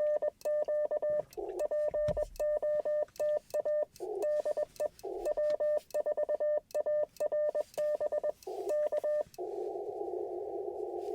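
Icom IC-705's Morse code sidetone as a CQ call is sent on the paddles: one steady beep keyed into dots and dashes, with faint paddle clicks. Between words and after the last character, about nine seconds in, the receiver's narrow-filtered band hiss comes back.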